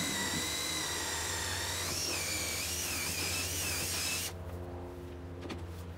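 Electric drill running with a high-pitched whine that wavers a little in pitch, then stops abruptly about four seconds in: a 3/8-inch hole being bored for a carriage bolt. A single light click follows near the end.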